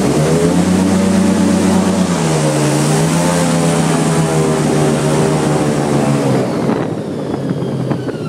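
Airboat's engine and air propeller at high throttle, with a loud rush of prop wash. It dips briefly a couple of seconds in and eases off about a second before the end.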